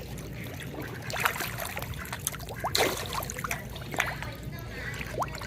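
Water splashing and slurping in short, irregular splashes as a crowd of carp thrash and gulp popcorn at the surface.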